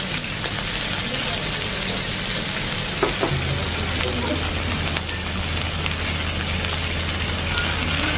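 Kopchang (beef small intestine) and other offal sizzling on a tabletop grill: a dense, steady hiss with small pops. A low steady hum joins about three seconds in.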